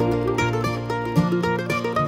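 Background music: an upbeat plucked-string instrumental tune with quick, short notes.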